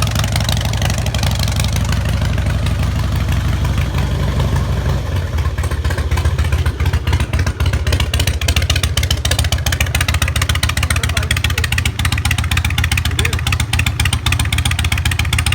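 2004 Harley-Davidson Night Train's carbureted V-twin running through Vance & Hines Big Radius exhaust pipes, with a steady pulsing beat. It gets a little louder from about six seconds in.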